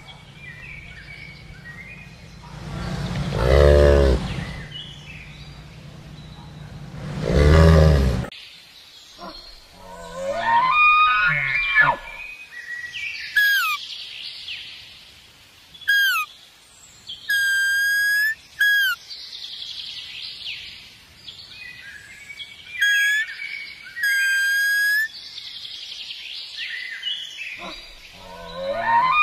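A domestic cow mooing twice, two long, loud calls about four seconds apart. After an abrupt cut comes a series of high chirps, gliding squeaks and short held whistle-like calls.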